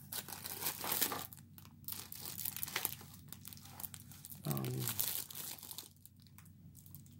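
Rustling and crinkling of packaging in irregular spurts as hands handle a diamond painting kit's cardboard box and its wrapping, with a short murmur of voice a little over halfway through.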